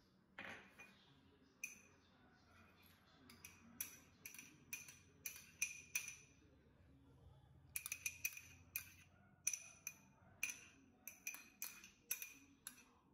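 Spoon clinking and scraping against a small glass bowl as ghee is scooped out into a pan: a quick series of sharp, ringing clinks in two runs, after a soft knock about half a second in.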